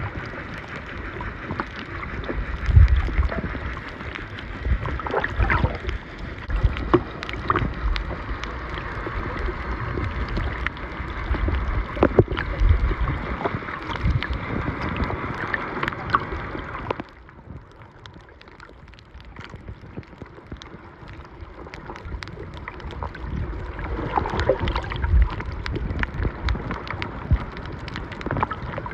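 Water noise picked up by a camera filming underwater on a coral reef: swirling and sloshing with low rumbles and scattered clicks and knocks. It drops abruptly quieter about 17 seconds in, then builds up again.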